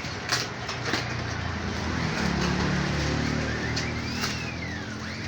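A motor vehicle passing by, its engine hum building and then fading away. There are a few sharp clicks near the start and a short rising-and-falling whistle near the end.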